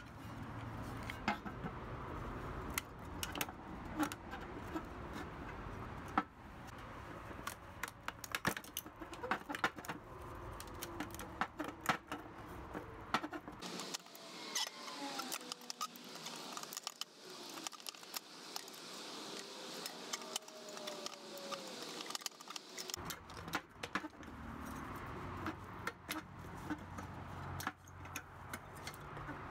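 Rusty pressed-steel toy dump truck being taken apart by hand: irregular metal clicks, taps and scrapes as the cab is worked loose and its plastic interior insert is pulled out.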